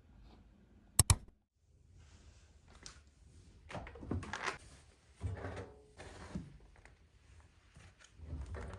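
A sharp double knock about a second in, then several irregular scuffs and rustles of objects being handled.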